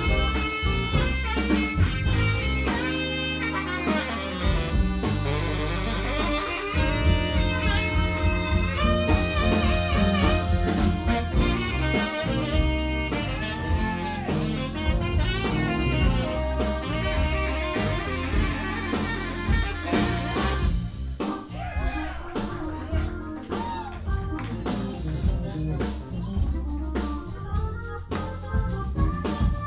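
Live blues-jazz band playing, with a saxophone lead over bass guitar, drums and keyboards. From about two-thirds of the way in, the saxophone line thins out and the drums come forward.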